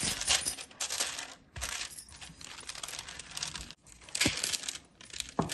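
Parchment paper rustling and crackling as a wooden rolling pin flattens dough between two sheets and the sheets are handled. There are sharper crackles near the start and about four seconds in.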